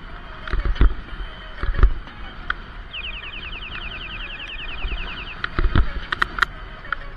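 Kick scooter rolling along a street with a steady low rumble, rattling over bumps in the pavement with several thumps. A rapid chirping repeats about eight times a second for a couple of seconds in the middle, and a few sharp clicks come near the end.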